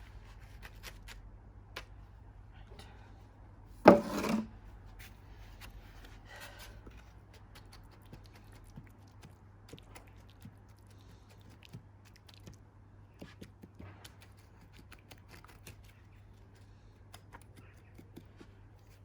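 Scattered small scrapes, rubs and light taps of cement being worked into a bird bath, with one louder knock about four seconds in.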